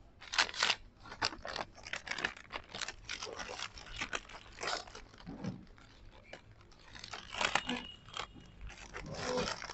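Plastic-foil chip packets rustling and crinkling in quick, irregular crackles as they are pulled off a snack rack and handled.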